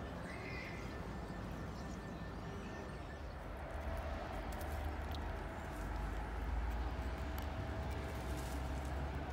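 Low, steady rumble of a distant engine with a faint steady hum, getting louder a few seconds in, with a few faint clicks over it.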